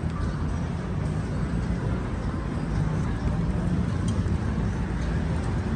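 Steady low rumble of busy city street ambience, without distinct events.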